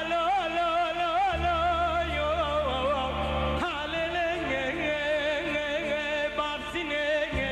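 Kurdish music: a heavily ornamented melody that wavers in wide vibrato and trills, carried over sustained low bass notes that change a couple of times.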